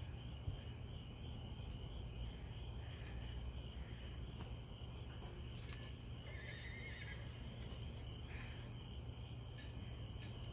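A horse whinnies once, briefly, about six seconds in, over steady insect chirring.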